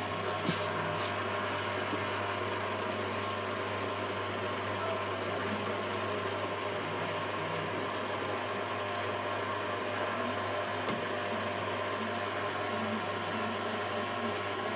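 Beko WM74165W washing machine running on its 90°C Daily Quick Wash programme, giving a steady mechanical hum with no rise in pitch. A couple of faint clicks come right at the start.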